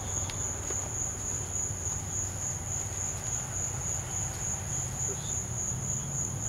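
Crickets chirring in one continuous high trill, over a low steady rumble.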